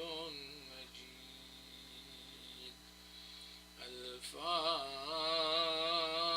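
A man chanting an Arabic prayer in a melodic, drawn-out voice. A phrase ends about a second in, then after a pause a long held note with a wavering pitch begins about four seconds in, over a steady electrical hum.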